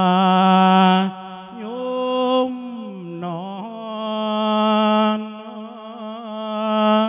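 A Thai monk's solo voice singing lae, the melismatic Thai sermon-chant, here a soul-calling lae (lae riak winyan), into a microphone. He holds long notes with slow wavering ornaments, in several phrases broken by short breaths.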